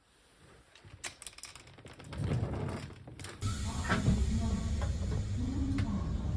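A few light clicks and knocks, then a low, steady rumble of a train carriage interior that sets in about three seconds in.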